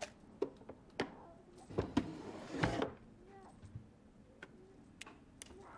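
Hands rummaging in a wooden drawer: a series of sharp knocks and rattles of objects being moved, the loudest with a brief scrape near the middle. Then a few lighter clicks as a portable record player's controls are worked.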